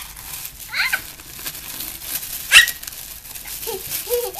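A small dog giving a few short, sharp yips, the loudest about two and a half seconds in.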